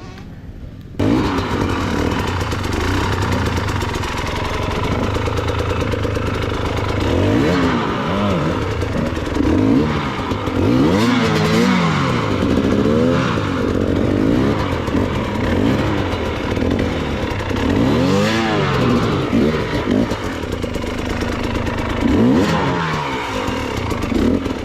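Enduro dirt bike engine revving up and down again and again, the rear wheel losing grip on a slippery climb. The engine comes in loud about a second in.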